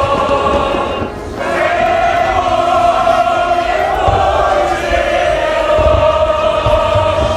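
A group of people singing a Korean art song (gagok) together in unison, holding long notes, with a short breath break about a second in.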